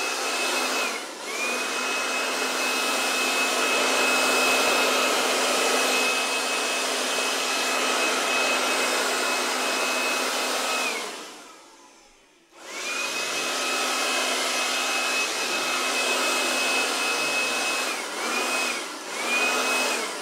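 KIMO 20V cordless handheld blower running, a steady whine over airy noise. The whine drops briefly about a second in, winds down to a stop a little past halfway, then spins back up, and eases off and back twice near the end.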